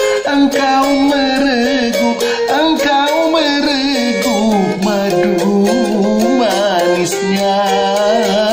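A man singing a dangdut song with long, wavering held notes, accompanied by a plucked Bugis kecapi (Kitoka), a two-string boat lute from South Sulawesi.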